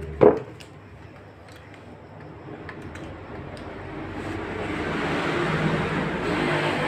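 A sharp knock as the power amplifier and its speaker leads are handled, then a noisy hiss with a low hum that swells over the last few seconds as the amplifier is brought into use.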